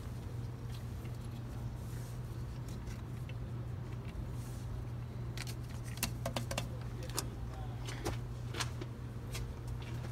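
Light clicks and taps of a paper gasket and plastic carburetor spacer being handled and seated down over the intake manifold studs, mostly in a cluster in the second half, over a steady low hum.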